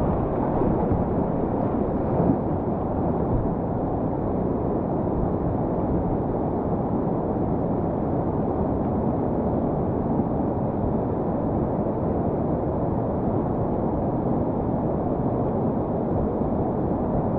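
Steady rushing of a whitewater river rapid, heard muffled, mostly a low rumble.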